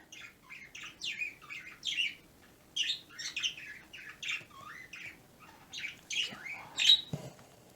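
Pet birds chirping and calling to each other: a continuous run of short, high chirps and squawks, many falling in pitch, the loudest call near the end.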